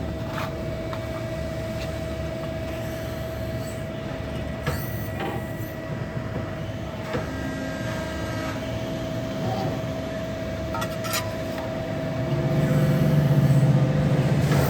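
CNC hydraulic press brake running for a test bend: the hydraulic pump unit hums steadily with a held tone, with a few sharp clicks. About twelve seconds in it grows louder and deeper, as the ram works under load.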